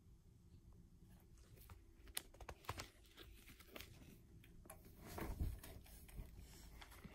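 Faint scratching and small clicks of a drawing tip moving on a plastic Xbox controller shell, with a louder rustle of handling about five seconds in.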